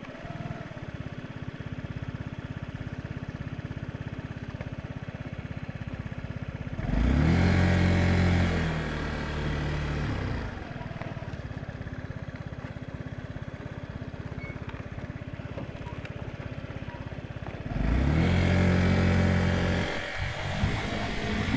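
Honda Giorno AF77 scooter's water-cooled 50cc four-stroke single starting up and idling, revved up twice with the pitch rising and then settling back to idle each time.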